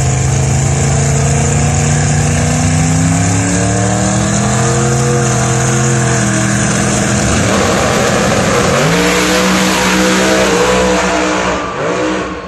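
Drag-racing car engines held at high revs on the starting line, the pitch climbing. About seven seconds in they launch hard down the track, with a dense roar and the engine note rising again. The sound falls away near the end as the cars run off.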